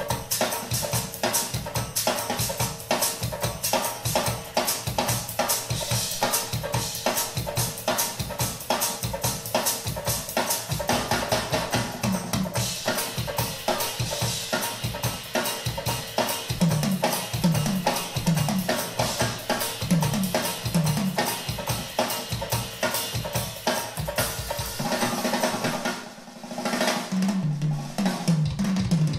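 Drum kit solo played back through OceanWay Audio Eureka loudspeakers driven by a Yamaha A-S3200 amplifier: fast snare, bass drum and cymbal strokes with runs of tom hits around the kit. The playing briefly drops away about 26 seconds in, then picks up again with another drummer.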